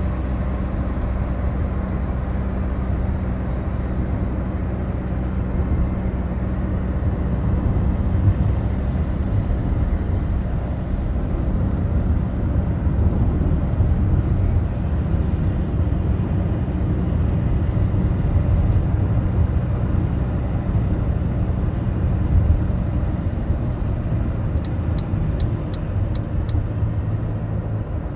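Ford Focus diesel heard from inside the cabin while driving: a steady low engine and road drone. Near the end come five light, evenly spaced ticks.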